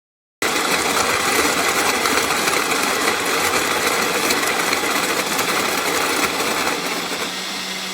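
Ollygrin electric conical burr coffee grinder running and grinding beans: a steady, dense grinding whir that starts abruptly about half a second in. It grows a little quieter near the end, leaving a steadier hum.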